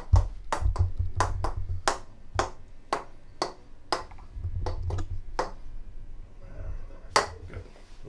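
Chiropractic adjusting hammer tapping at the back of the shoulder: a string of sharp clicks, about two a second, for five or six seconds, then one louder tap near the end.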